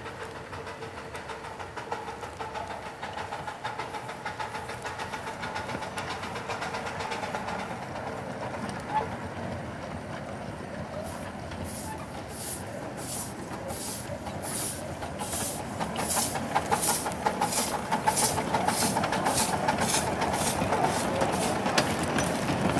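Small ridable steam locomotive working along its track with riders aboard. From about halfway through, its exhaust chuffs in an even beat of roughly two a second, getting louder as it comes closer.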